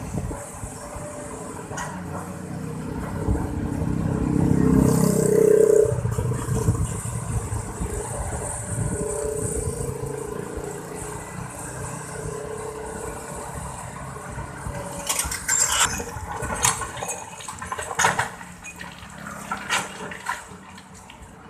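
Hydraulic excavator's diesel engine running, rising in revs to its loudest about five seconds in, then settling back. Near the end comes a run of sharp knocks and clanks.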